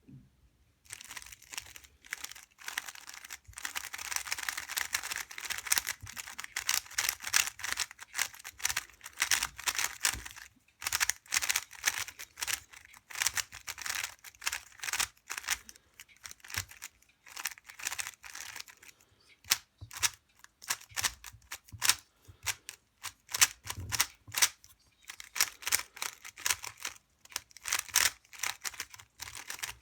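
Magnetic 3x3 speedcube being turned fast, its plastic layers clicking and clacking in quick runs of turns. The first ten seconds or so are almost continuous turning, after which the turns come in short, separate flurries.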